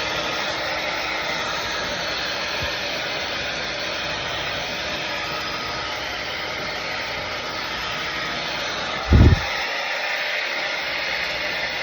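Handheld blow dryer blowing steadily on hair, with one brief low thump about nine seconds in.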